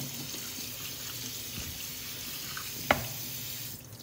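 Tap water running steadily into a stainless steel sink as washed broccoli drains in a plastic colander, with one sharp knock about three seconds in. The running water stops just before the end.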